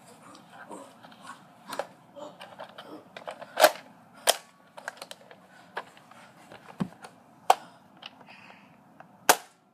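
A Nerf blaster firing foam darts at irregular intervals, making sharp snaps and clacks, with fainter ticks of darts striking in between; the loudest snaps come about three and a half, four and a half, seven and a half and nine seconds in.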